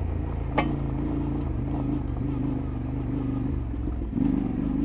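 Yamaha Ténéré 700 World Raid's parallel-twin engine running at a steady, light throttle while riding off road, with one sharp click about half a second in. The engine picks up a little near the end.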